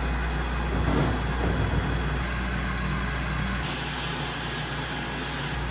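Sandblasting cabinet running: a steady hiss of blasting over a low machine hum, whose sound changes abruptly about two-thirds of the way through.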